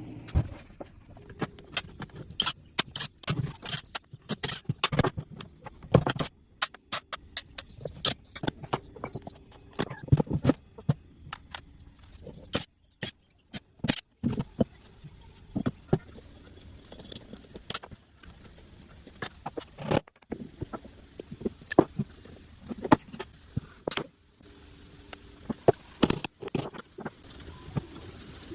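Irregular sharp metal clinks, taps and scrapes of hand tools on motor parts, in quick clusters with a few brief gaps.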